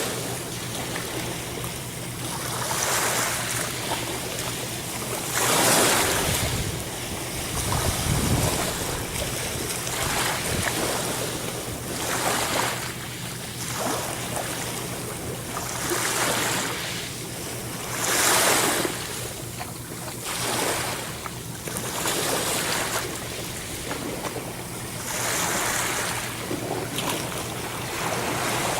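Ocean waves breaking and washing in, the surf swelling and falling back every few seconds.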